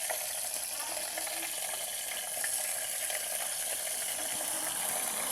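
Chicken frying in hot oil: a steady sizzle with small crackles and pops.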